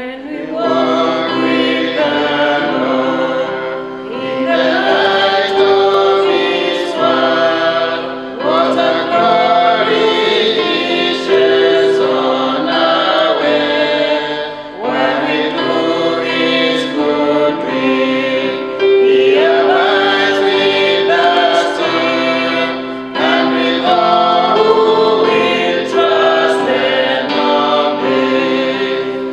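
Choir singing gospel music, in phrases of a few seconds with long held notes.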